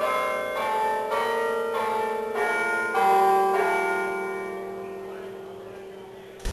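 Verdin Company carillon bells playing a run of notes, about two strikes a second. The last note, about three seconds in, is left ringing and slowly fades. A short thump comes just at the end.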